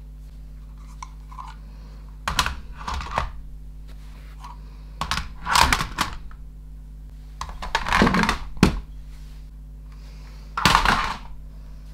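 Plastic clicks and clatter from Dymo Omega embossing label makers being handled, tested and put down, in about six short bursts over a faint steady low hum.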